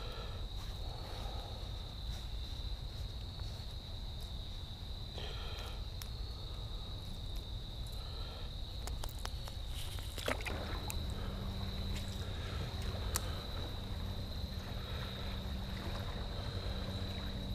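Insects droning steadily at one high pitch over a low rumble of water and wind, with a few faint clicks near the middle.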